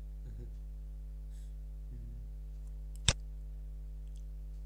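A single sharp computer mouse button click about three seconds in, over a steady low hum.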